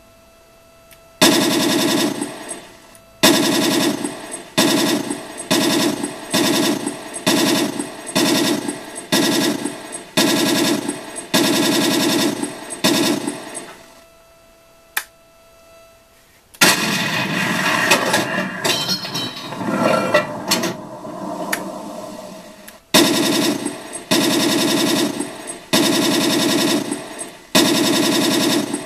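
The TK22 sound card of an RC Tiger I tank plays simulated machine-gun fire. It starts as a string of about a dozen short bursts. After a brief pause and a click, about six seconds of continuous, denser firing follow, then more short bursts.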